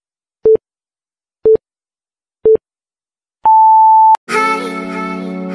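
Electronic countdown beeps: three short, identical low beeps a second apart, then one longer, higher beep that cuts off sharply. Music starts right after it, near the end.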